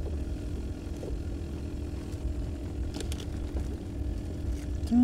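Boat engine running steadily: a low rumble with a faint steady hum, and a couple of light clicks.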